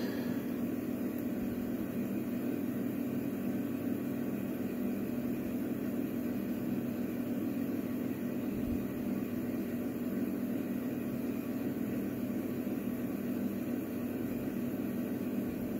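A steady low machine hum with no distinct clicks or knocks.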